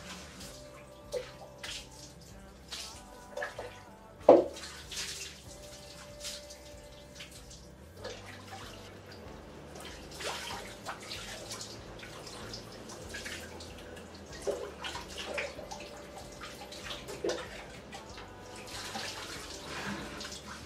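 Water running and splashing, with scattered knocks and clicks; a single sharp knock about four seconds in is the loudest sound.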